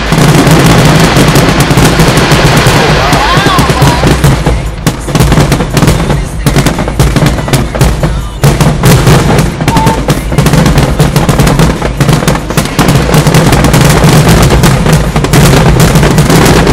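A fireworks display going off in a rapid, dense barrage of bangs and crackles, very loud, with music playing in the background.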